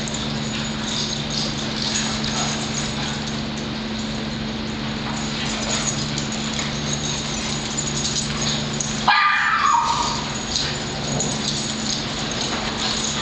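Several dogs playing together, with scattered yips and barks over a steady low hum. One loud, high-pitched bark comes about nine seconds in.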